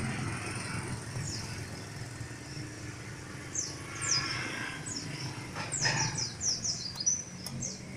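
Small birds chirping in quick falling notes, with a fast run of chirps from about five and a half to seven and a half seconds in, over a steady low rumble.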